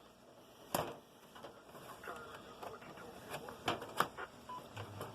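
Plastic clips of a laptop's bottom cover snapping loose as the cover is pried off, with a sharp click about a second in and two more near the end, plus small ticks of plastic handling between.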